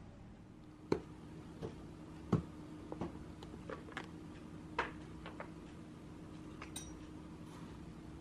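Plastic food container's clip-on lid being unclipped and lifted off: a series of sharp plastic clicks and knocks, about a dozen over several seconds, with a brief squeak a little before the end, over a faint steady hum.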